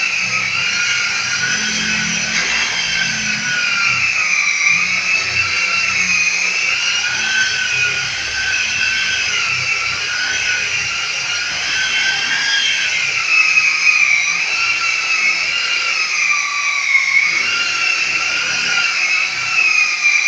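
Corded electric polisher with a round pad running against a plastered wall, polishing a burnished-cement finish. The motor gives a steady high whine whose pitch drifts slowly up and down as the pad is pressed and moved.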